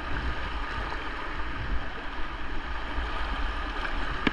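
The River Derwent running high and fast: a steady rush of moving water past a canoe, with a short knock near the end.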